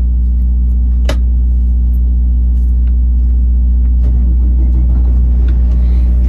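Semi-truck diesel engine running at a steady, unchanging speed, a loud low rumble heard from inside the cab, with a single sharp click about a second in.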